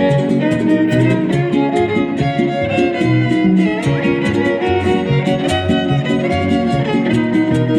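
Son huasteco trio playing an instrumental interlude: violin melody over strummed jarana and huapanguera, with a quick, even beat of sharp clicks.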